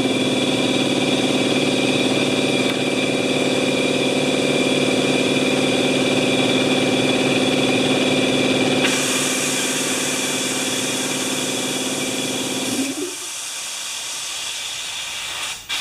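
Eagle twin-tank wheelbarrow air compressor, electric motor and V-twin pump, running steadily just after being switched on, with air hissing out of an open valve. About thirteen seconds in the motor stops and the hiss of escaping air carries on. The hiss comes from a valve left open, not a leak.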